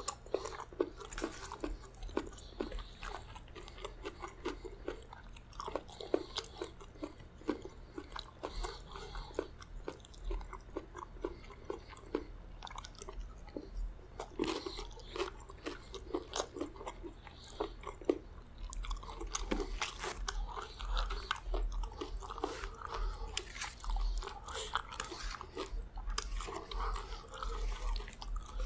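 Close-miked chewing and biting of chicken gizzard curry with rice, wet and crunchy mouth sounds, with a metal spoon clicking and scraping against a steel plate. From about two-thirds of the way in the sound becomes denser and wetter as rice is mixed into the gravy by hand.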